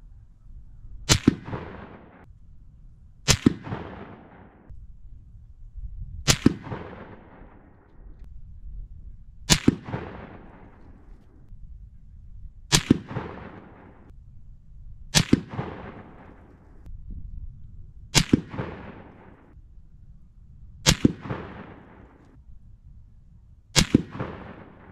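Nine rifle shots from a Ruger Precision Rifle in .300 Winchester Magnum, one every two to three seconds. Each is a sharp crack followed by about a second of echo.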